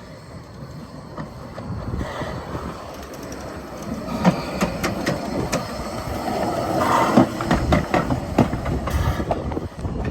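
Narrow-gauge train running by: a low rumble with irregular clanks and clicks from the wheels and couplings, growing louder from about four seconds in and easing off near the end.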